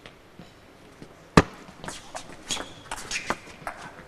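Table tennis rally: the ball clicks sharply off the bats and the table in quick succession. A single loud sharp knock about a second and a half in, the loudest sound, comes just before the run of clicks.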